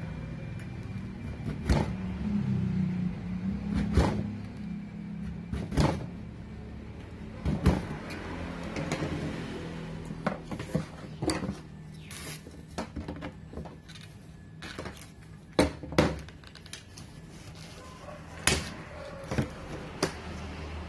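Irregular sharp clicks and knocks of a thin painted metal strip being bent with a hand bending tool and handled on a work board, over a steady low hum.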